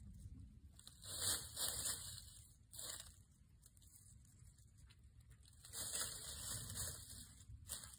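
Dry rustling in a few bursts, the longest about a second in and again near six seconds, as a small goat shifts in dry fallen leaves and tugs at a dry hanging vine.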